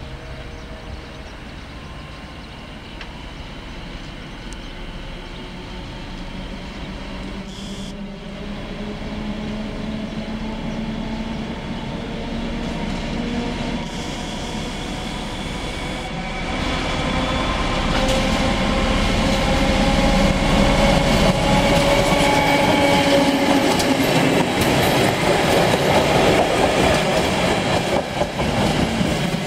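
Class 754 'Brejlovec' diesel locomotive working under load as it pulls a passenger train past, its engine note growing steadily louder and rising a little in pitch. Near the end the coaches' wheels click over the rail joints as they roll by.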